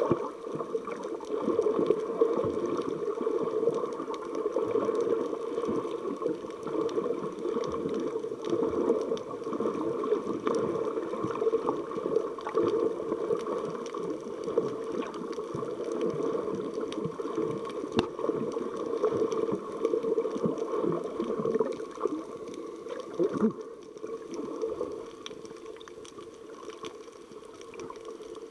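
Underwater sound picked up by an action camera's microphone while submerged: a dull, steady gurgling wash of moving water with scattered faint clicks, easing off over the last few seconds.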